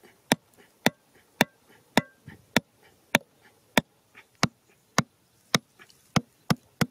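Hammer striking the top of a bamboo stake, driving it into the ground with sharp, evenly spaced knocks about two a second, a little quicker near the end.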